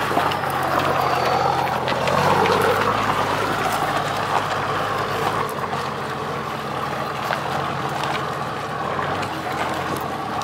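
Toyota Land Cruiser's 1HD-T 4.2-litre straight-six turbo diesel running at low speed as the truck crawls over rock and gravel, under a steady rushing noise. About halfway through, the engine's deeper note drops away and it runs quieter.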